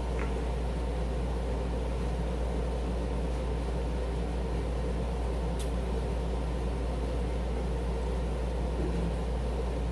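Steady low hum with an even hiss over it, the sound of a running machine such as a fan or air conditioner, with one faint click a little past halfway.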